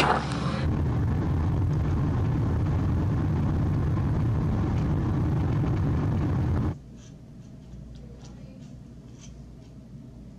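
Steady low rumble of a car on the move, heard from inside the cabin, cutting off suddenly about seven seconds in to a quiet room with a few faint ticks.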